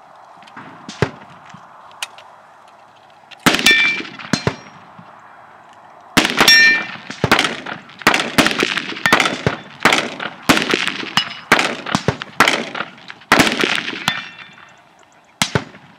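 A string of rifle shots from a scoped rifle fired from a ramp, a few spaced shots and then rapid fire at about two a second. Some shots are followed by a short metallic ring, typical of steel targets being hit.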